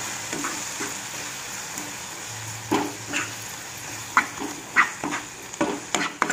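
Ridge gourd curry sizzling in oil in a nonstick kadai while a spatula stirs and scrapes it. Several short, sharp sounds come from about the middle on, the loudest at around four and five seconds in.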